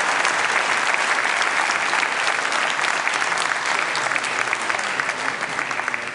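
Audience applauding with dense clapping that begins to thin out and quieten near the end.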